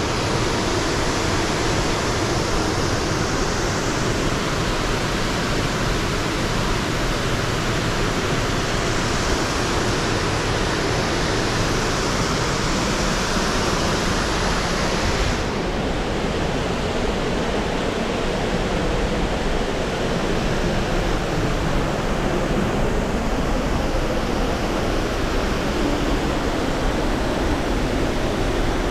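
Steady rush of water at Buttermilk Falls. About halfway through, the top of the hiss dulls slightly.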